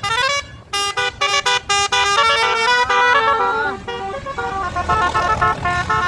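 Bus basuri horn, a multi-note melodic horn, playing a tune: quick stepped notes for the first two seconds, then longer held notes, over the low rumble of the bus.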